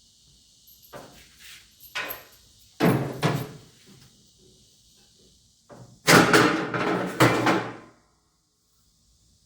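Metal clanks and knocks from parts of a tractor finish mower being handled during disassembly: a few separate knocks in the first three seconds, then a louder clattering about six seconds in that lasts a second and a half.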